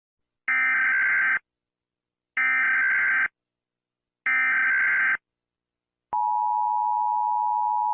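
Emergency Alert System broadcast header: three one-second bursts of SAME digital data tones, evenly spaced, then about six seconds in the steady two-pitch EAS attention tone begins.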